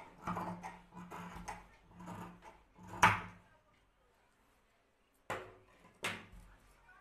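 Large tailor's shears cutting through folded cotton cloth in a run of crunching snips, with a loud sharp clack about three seconds in. After a short pause, the shears are set down on the wooden table top with two knocks.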